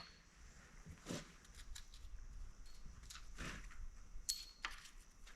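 Faint, scattered knocks and clinks of hand tools and metal parts being handled during an engine teardown, with one short metallic ring about four seconds in.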